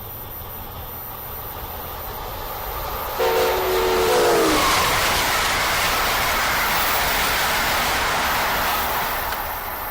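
An Amtrak train led by an AEM-7 'toaster' electric locomotive passes at speed. Its horn sounds a chord for about a second and a half, the pitch dropping as the locomotive goes by. Then comes the loud rush of the train going past for several seconds, fading near the end.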